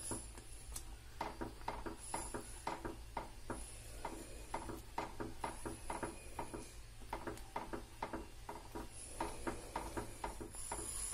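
Silicone whisk knocking and scraping against a non-stick frying pan as it stirs a thickened cornflour halwa mixture with ghee, about three soft ticks a second, over a low steady hum.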